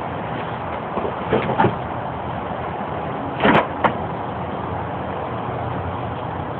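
Steady background noise with a few short knocks and clanks, the loudest pair about three and a half seconds in, as metal axle parts are handled.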